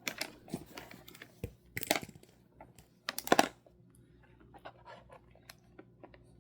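Small clicks and scrapes of handling at a meal table, with two louder rustling scrapes about two seconds and three and a half seconds in, then scattered light ticks.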